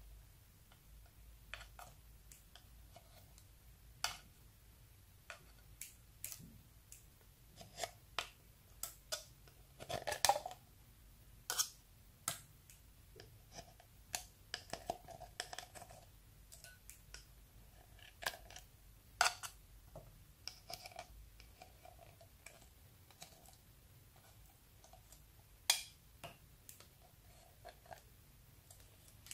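Small metal scissors prying baked eyeshadows out of a plastic makeup palette: irregular clicks and short scrapes as metal catches on the pans and the powder domes break loose, a few of them sharper and louder.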